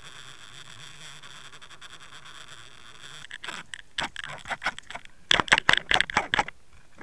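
Steady hiss of water rushing past a trolled underwater camera. From about three seconds in it breaks into a rapid flurry of sharp knocks and rattles, loudest near the end, as a walleye strikes the crankbait and jerks the line.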